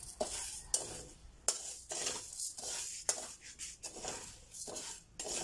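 Metal spatula stirring and scraping roasting rice around a stainless steel wok: repeated scraping strokes with sharp metal clicks, the grains rasping against the pan.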